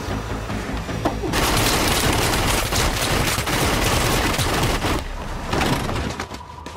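Film soundtrack automatic gunfire: a long, dense burst of rapid shots starting about a second in and lasting about four seconds, with lighter shooting around it.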